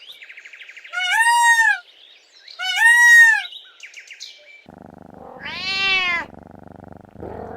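Domestic cat meowing: three drawn-out meows, each rising then falling in pitch, with a low steady hum coming in before the third.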